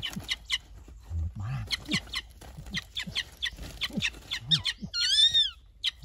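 Parrots calling: a run of short, sharp high chirps, with one longer rising-and-falling squawk about five seconds in.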